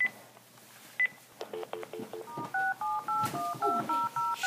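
Touch-tone phone keypad beeping as a phone number is dialed: a quick run of about ten dual-tone beeps, four or five a second, starting about halfway through. Two single short beeps come before it, about a second apart.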